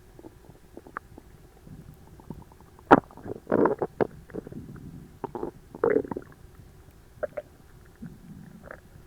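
Human stomach and gut gurgling after a very large meal: digestion of an overfull stomach. There is a sharp pop about three seconds in, then a run of irregular bubbling gurgles.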